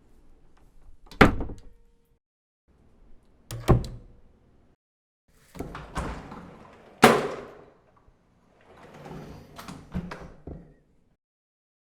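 A series of separate door recordings, each ending in dead silence: a door shuts with a sharp bang about a second in, another shuts with a thud near four seconds, one sweeps shut and slams loudest about seven seconds in, and toward the end a door slides or scrapes with a few knocks.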